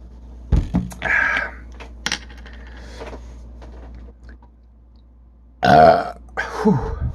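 A man burping loudly twice in quick succession near the end, the second burp falling in pitch; the burps are brought up by gulping carbonated lemon-lime soda. A shorter sound comes about a second in.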